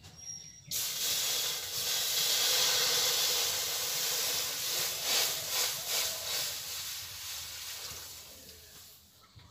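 Water poured into a hot, empty wok, hissing as it flashes to steam. The hiss starts suddenly about a second in, crackles midway, and dies away toward the end.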